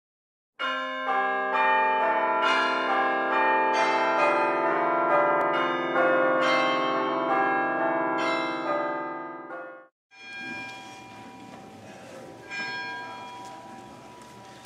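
Church bells pealing, struck about twice a second in a changing sequence of pitches, each stroke ringing on under the next; they cut off suddenly about ten seconds in, leaving quieter church room noise.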